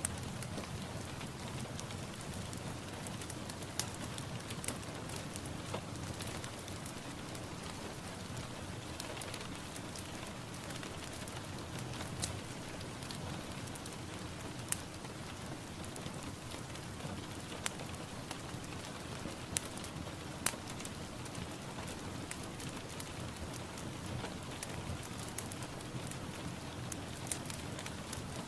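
Steady rain falling on a surface, with frequent sharp ticks of single drops scattered through it.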